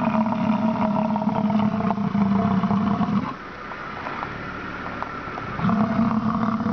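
Bison grunting: a long, low, steady call that stops about three seconds in, and a second one starting near the end.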